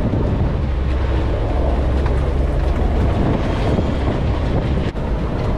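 Storm wind blasting across the microphone over the steady low running of a sailboat's engine, which is being used to hold the boat against the wind.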